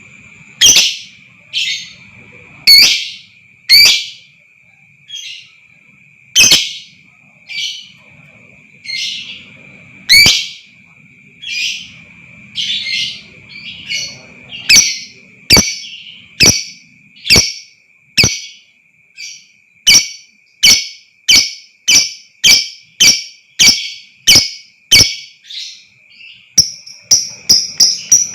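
Lovebird giving loud, sharp chirps, spaced about a second apart at first and quickening to about two a second from halfway, faster still near the end. A steady high ringing tone runs underneath.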